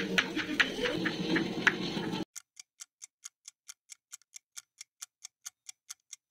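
A kitchen knife slicing a carrot on a plastic cutting board, with uneven sharp taps as the blade meets the board. About two seconds in, this cuts to a steady clock-like ticking on silence, about five ticks a second, an added sound effect.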